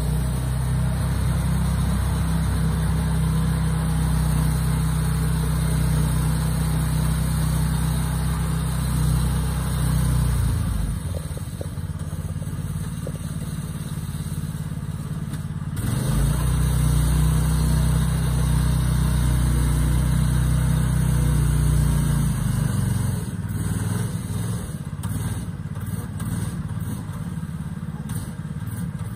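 Engine of a small cut-down pickup truck running under load as it drives off-road over a dirt mound: two long spells of heavy steady running, easing off about ten seconds in, picking up again around sixteen seconds, and dropping back after about twenty-two seconds.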